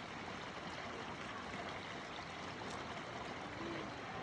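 Steady rushing noise of flowing water, like a stream.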